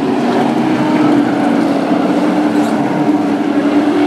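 Engines of a pack of short-track race trucks running together at speed past the fence, a loud, steady engine note.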